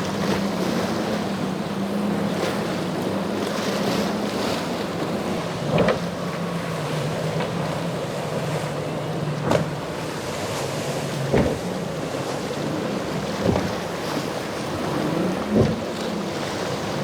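Boat engines droning with a wavering low hum over the wash of waves and wind buffeting the microphone. Several short thumps come through the second half, about every two seconds.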